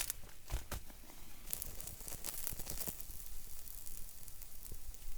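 Steak sizzling and crackling on campfire coals, with a hiss and many small pops that come thickest a second or two in.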